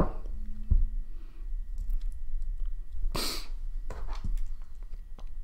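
Handling noise from a small plastic phono cartridge turned over in the fingers: scattered clicks and knocks, the loudest right at the start. A short breathy rush comes about three seconds in.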